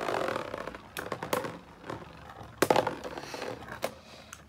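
Two plastic Beyblade spinning tops whirring in a plastic stadium and clacking sharply against each other about four times.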